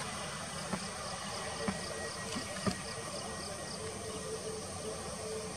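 Jet engines of an Airbus A320neo airliner running as it moves along the ground: a steady, even rushing noise with a held hum underneath. A few light knocks fall in the first three seconds, and a faint high chirping comes about three times a second.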